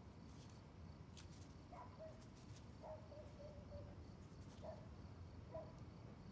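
Near silence: quiet room tone with a few faint ticks and some faint, short chirp-like tones.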